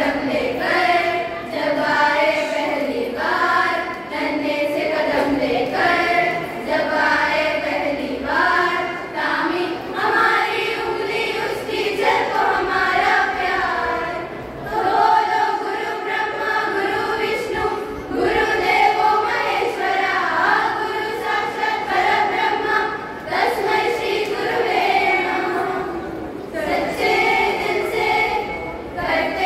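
A group of class 9 schoolgirls singing a song together as a choir, in sustained phrases with short breaks between them.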